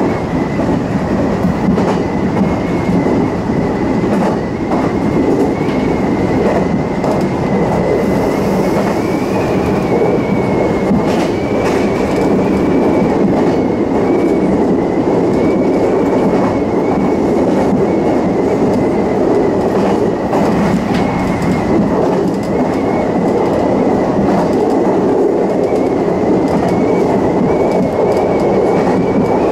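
Meitetsu electric train running along the track, heard from the driver's cab: a steady rumble of wheels on rail, with a thin high tone that wavers slightly in pitch.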